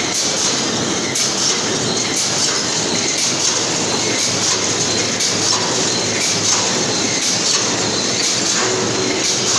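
Brick force wire mesh welding machine running: a steady mechanical clatter with short sharp clicks repeating about once or twice a second.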